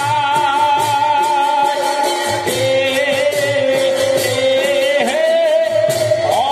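Traditional Assamese bhaona music accompanying the dance: a long, wavering melody line holding one note, then dropping to a lower one about two and a half seconds in, over a steady drum beat and regular bright metallic strikes.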